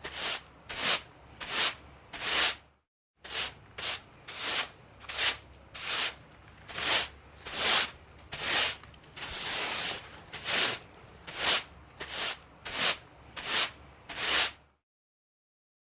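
Regular back-and-forth rubbing or scraping strokes, about one every three-quarters of a second, with a brief break near the start and one longer stroke about two-thirds of the way through.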